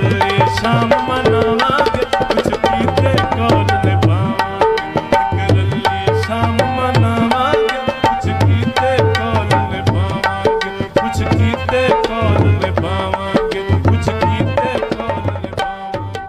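Instrumental passage of Punjabi folk music: tabla playing a fast, driving rhythm under held melody notes, beginning to fade near the end.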